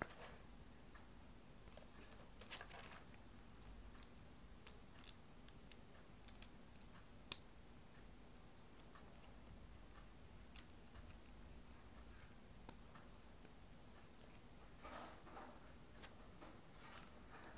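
Small plastic building bricks clicking and rattling as they are picked through and pressed together by hand: scattered single sharp clicks, with short bursts of rattling about three seconds in and again near the end.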